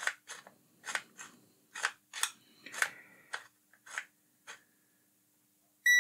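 A digital multimeter's rotary selector dial being clicked through its detents, about two clicks a second, as the meter is switched on and off repeatedly. Near the end the meter gives one short electronic beep.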